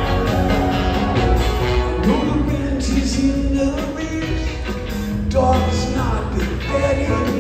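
Live band playing a song in a theatre, recorded from the audience seats: steady, loud music with a strong bass line.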